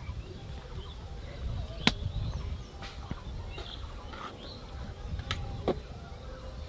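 A metal ladle stirring thick khichuri in an aluminium pot, knocking sharply against the pot a few times, the loudest knock about two seconds in. Birds call in the background over a low rumble.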